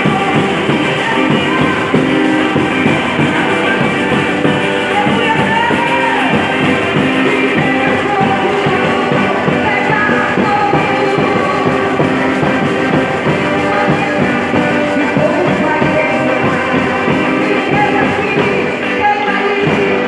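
Live church orchestra playing a worship piece, full and steady, with singing over the instruments.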